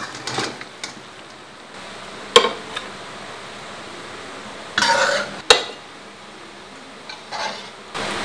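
A utensil clinking and scraping against an iron wok and a ceramic plate as braised tiger-skin eggs are lifted out of the sauce and plated, with two sharp clinks about two and a half and five and a half seconds in and a brief scrape just before the second.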